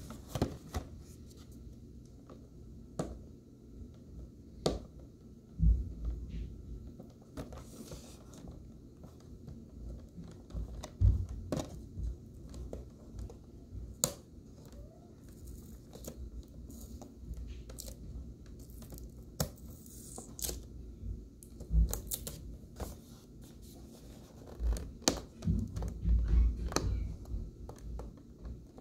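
A cardboard product box being handled and opened by hand: scattered tearing, scraping and rustling of the packaging, with a few louder thumps and a busier stretch of handling near the end.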